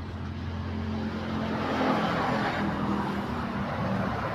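A motor vehicle's engine running nearby: a steady rumble and hiss that grows a little louder over the first couple of seconds.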